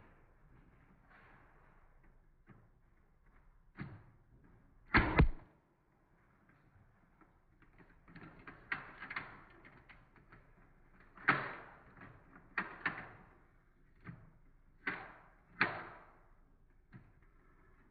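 X-Shot foam dart blaster being cocked and fired: a series of sharp plastic clacks with quieter handling clicks between them. The loudest is a double clack about five seconds in, and a quicker run of clacks follows later.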